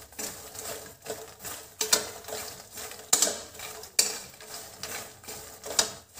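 A steel spatula scrapes and clinks against a steel kadai as makhana (fox nuts) are stirred while they roast in a little ghee. The strokes are irregular, with several sharper clinks.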